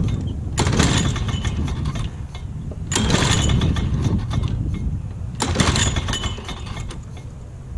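1986 Lawn-Boy mower's two-stroke F-Series engine being pull-started on full choke, three pulls about two and a half seconds apart. It fires and pops on each pull but does not keep running, the low running sound fading toward the end.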